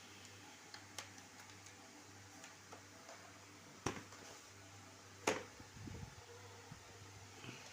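A few sharp clicks and taps over a faint, steady low hum, the two loudest about four and five seconds in, followed by a brief rustle.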